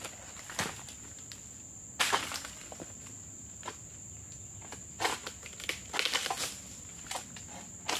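Irregular crunching and rustling of dry oil palm fronds and debris as the worker moves and brings the long-pole sickle up to the fronds, with a steady high insect drone underneath.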